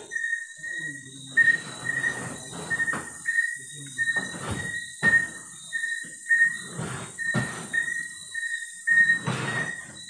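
A short, high electronic beep repeating about twice a second, over irregular scuffs and knocks.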